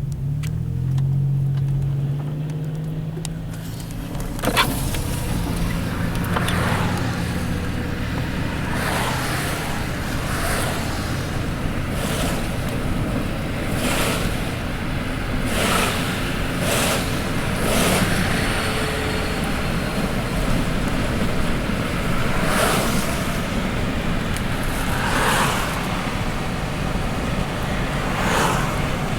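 A vehicle's engine running, its pitch rising briefly near the start, under a continuous rushing noise that swells every second or two, like wind and slushy road noise.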